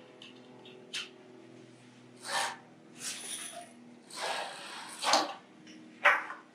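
CNC machine rails being handled and slid into their slots in a storage case: a click, then several short scraping and rubbing noises, the longest about halfway through, and a sharp knock near the end.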